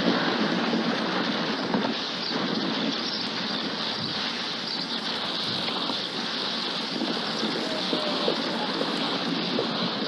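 Steady rushing wind noise, with a few faint short tones and light ticks over it.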